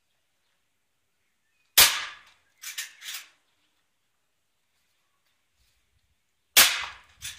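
Winchester air rifle firing twice, a sharp crack about two seconds in and another near the end, each followed by a pair of quieter clicks.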